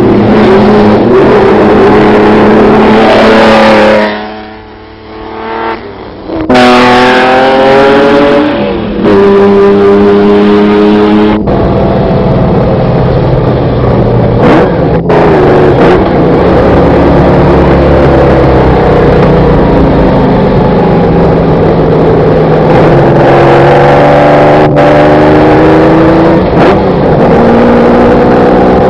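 Ferrari-engined sports car running hard, the engine note climbing repeatedly as it accelerates. The sound drops away briefly about four seconds in, then comes back loud.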